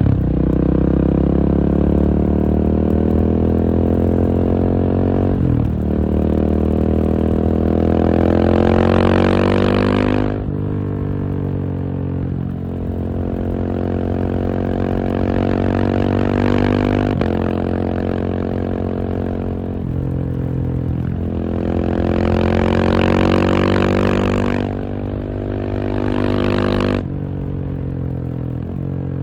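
KTM 690 SMC R's single-cylinder engine under hard acceleration, the revs climbing with a brief dip at a gear change about five seconds in. The throttle is closed about ten seconds in, the engine pulls again from around twenty seconds, and it drops off once more near the end.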